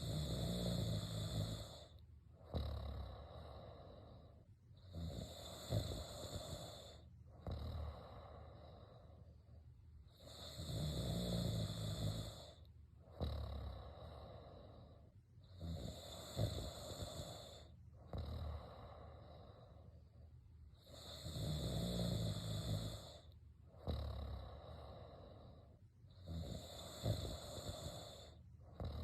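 A person snoring in a steady breathing rhythm, one breath about every two and a half seconds. A louder, harsher snore comes about every ten seconds, three times in all.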